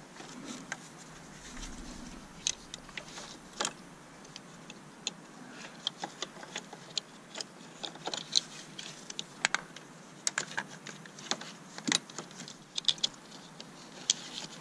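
Scattered, irregular light clicks and taps of small parts and tools being handled during engine repair work.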